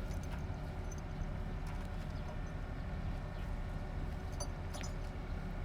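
Steady low engine rumble of machinery running, with a few light knocks and clinks scattered through it.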